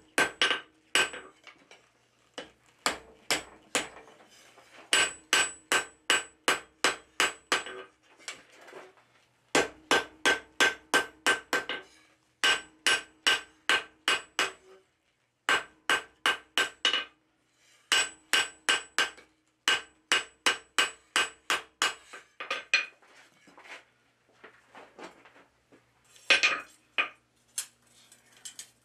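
Blacksmith's hand hammer striking a red-hot steel bar on an anvil, forging it to shape. The blows come in quick runs of about three a second with short pauses between, and each blow rings on the anvil.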